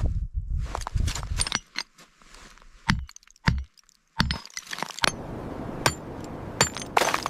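Pieces of ice clinking and cracking in a series of sharp knocks, with a short silence in the middle.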